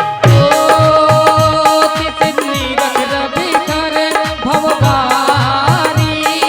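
Indian devotional music between sung verses: a long held melody over a steady hand-drum rhythm, the drum's deep strokes sliding down in pitch.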